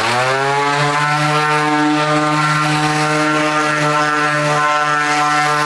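Electric random orbital sander with 60-grit paper spinning up, then running at a steady pitch against a reclaimed wood board, an even motor whine with a sanding hiss over it.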